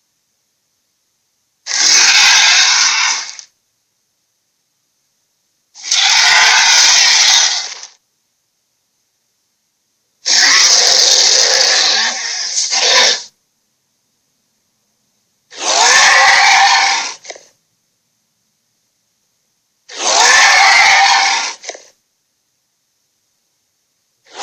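A sound effect played five times. Each burst lasts about two seconds and is noisy with a faint pitch running through it, and complete silence falls between the bursts.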